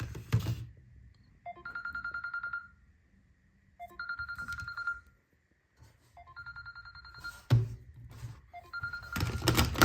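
A mobile phone's old-style trilling ringtone: rapid bell-like trills about a second long, repeating four times with short gaps. A thump comes just after the third ring, and a louder clatter comes near the end.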